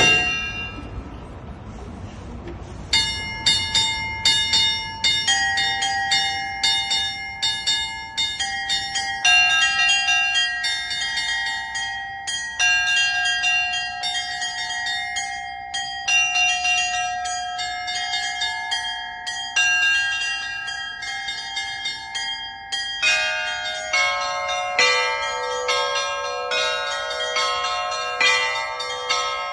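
Russian Orthodox church bells rung in a festival peal (zvon). A single stroke rings out first. From about three seconds in comes a fast, rhythmic pattern of small high bells struck over sustained middle bells. Lower bells join in about twenty-three seconds in.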